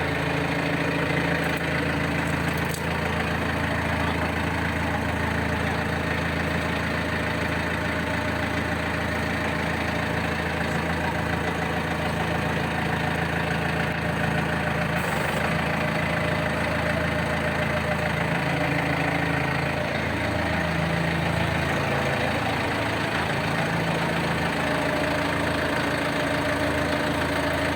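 Rotary sawdust dryer running steadily: a continuous machine hum with several low droning tones that shift slightly in pitch about two-thirds of the way through.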